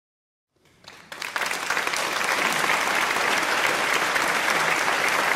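Crowd applauding: the clapping starts about half a second in, swells over about a second, and then holds at a steady, dense level.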